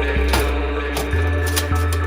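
Background music with a steady beat and a changing bass line.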